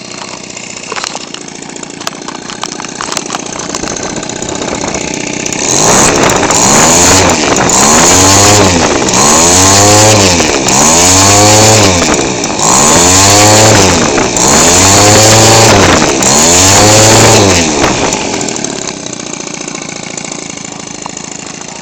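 Weedeater Featherlite 15cc two-stroke engine, converted for a model airplane with a propeller and a gutted muffler with a welded pipe, idling. From about six seconds in it is revved by hand about six times, each blip rising to a high scream and falling back, and then it settles back to idle near the end.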